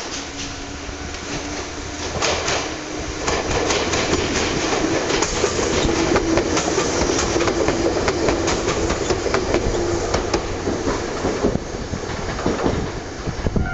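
A Ryutetsu 5000-series electric train (ex-Seibu New 101 series) comes in and passes close by, its wheels clattering over rail joints and points. The sound builds about two seconds in, carries a steady hum from the running gear while the cars go past, and drops away near the end.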